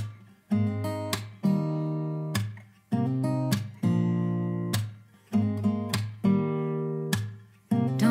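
Background music: an acoustic guitar strumming chords, one roughly every second, each left to ring out and fade before the next.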